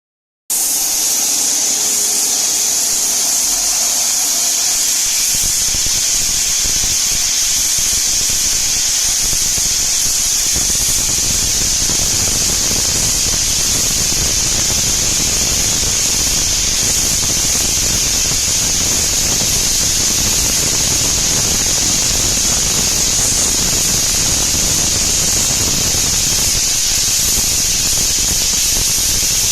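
CNC machine running steadily: a continuous high-pitched whine over a hiss, with a lower rumble joining a few seconds in and growing heavier after about ten seconds.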